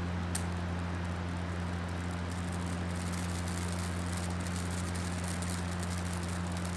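A steady low hum with a hiss over it. There is a single sharp click just under half a second in, and from about two seconds on a faint, rapid crackle of tiny ticks.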